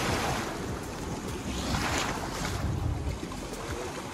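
Shallow surf washing in around the waders' legs, swelling twice (at the start and about two seconds in), with wind buffeting the microphone.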